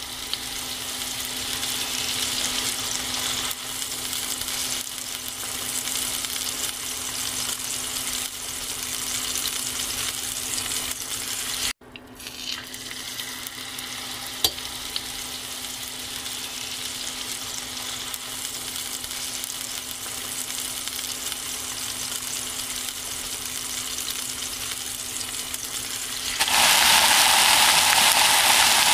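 Beef and vegetables sizzling on a round griddle pan over a portable gas stove, a steady frying hiss. It cuts out for a moment about twelve seconds in, there is one sharp click a couple of seconds later, and the sizzle turns louder near the end.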